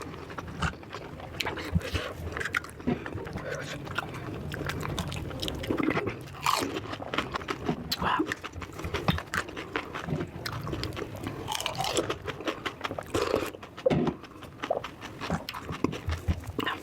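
Close-up eating sounds: biting into and chewing crunchy food, with many irregular sharp crunches.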